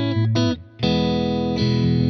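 S-style electric guitar with single-coil pickups playing chords through an amp. One chord is cut short about half a second in, then a new chord rings on.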